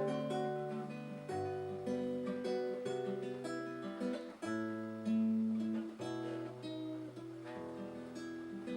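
Acoustic guitar playing an instrumental introduction to a song: plucked chord notes over a moving bass line.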